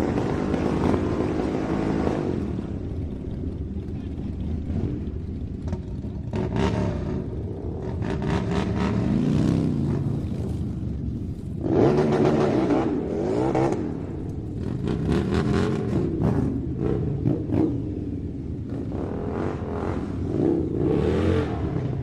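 Motorcycle engine running and being revved repeatedly, the revs rising and falling several times, with the strongest surge about twelve seconds in.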